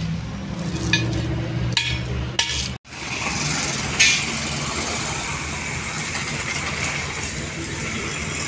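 A few light metal clinks over a steady low engine hum. After a brief break, a steady hiss with a single sharp knock as the steel diesel tank is handled.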